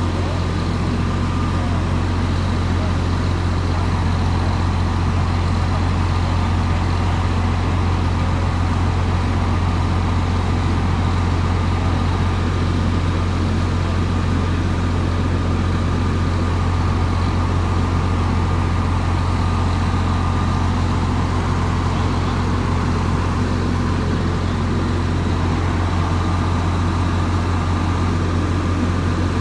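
Fire engine's diesel engine running steadily at high idle while pumping water into the charged hose lines connected to it, a constant deep drone with no change in speed.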